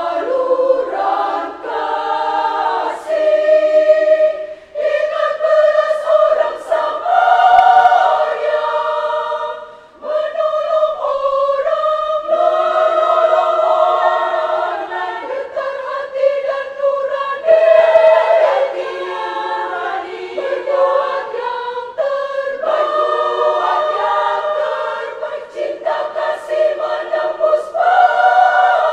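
Women's choir singing together in long held phrases, with short breaks for breath between them, the clearest about ten seconds in.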